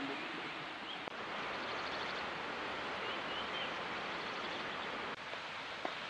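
Steady outdoor forest ambience: an even rushing hiss with a few faint, high chirps, stepping up slightly in level about a second in.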